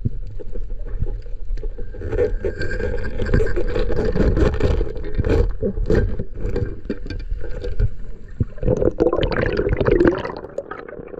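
Underwater sound picked up by a submerged action camera: a steady low rumble of water movement with many small clicks and crackles. Near the end it turns to a busier rush of water and bubbling as the camera rises toward the surface, then drops off.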